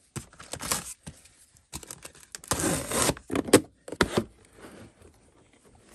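Unpacking noises: rustling and scraping of cardboard and packing material, then sharp metallic clicks as the latches of an aluminium carrying case are worked open.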